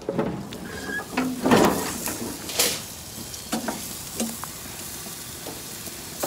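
Steak and chicken sizzling on a grill, with clicks and clatters of metal tongs against the grate; the loudest knocks come about one and a half and two and a half seconds in.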